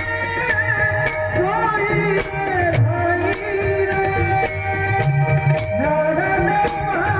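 Marathi devotional abhang music. A melodic voice line glides between notes over tabla strokes, and small hand cymbals strike a steady beat about twice a second.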